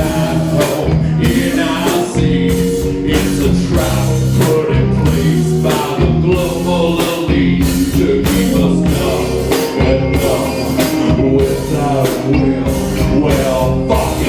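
Live rock band playing loud, with electric guitar, bass and a drum kit keeping a steady beat.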